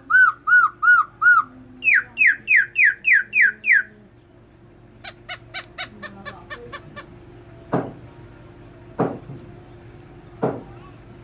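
Caged black-throated laughingthrush singing: a run of loud arched whistled notes at about five a second, then seven quicker downslurred whistles, then a fast series of short notes that fades away, and three single sharp calls spaced more than a second apart.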